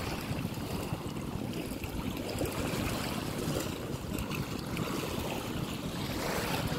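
Steady wind rumbling on the microphone, with river water washing in the shallows.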